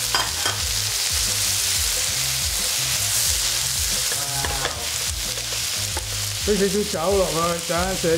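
Shrimp and snow peas sizzling in a hot wok as they are stir-fried and tossed, a steady frying hiss with a few short clicks of the utensil.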